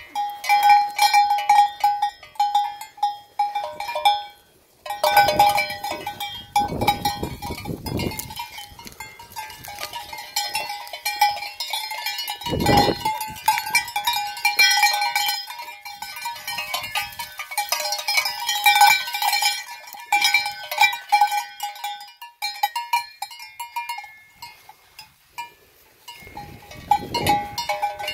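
Metal bell on a grazing sheep clanking irregularly as the animal moves, pausing briefly about four seconds in, with a few low rumbles in between.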